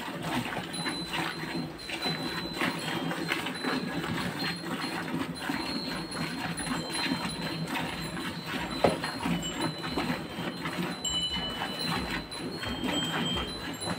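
A cow being milked by hand: streams of milk squirting rhythmically into a metal bucket. There is one sharp knock a little before nine seconds in.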